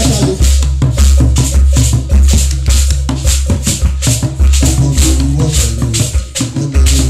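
Loud, upbeat praise music with a deep, steady beat about twice a second and a shaker rattling on the beat. The tall stand-mounted hand drums are played with sticks.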